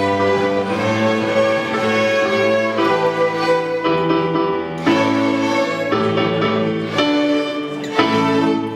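A string ensemble of bowed violins with lower strings playing sustained chords that change every second or so.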